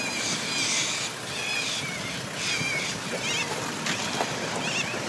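Birds in a flock giving harsh, screeching calls, about one or two a second, over a steady low background rumble.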